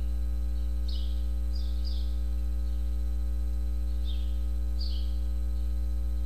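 Steady electrical mains hum with a buzzing ladder of overtones, carried on the audio feed. Short high bird chirps come through faintly several times over it.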